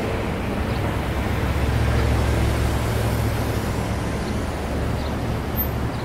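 Steady street traffic noise with a deep vehicle engine rumble that swells about two seconds in and eases off near the end.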